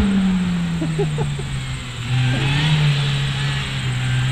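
Mini Cooper's four-cylinder engine pulling at high revs as the car is driven hard on grass, the revs easing off over the first two seconds and then holding steady.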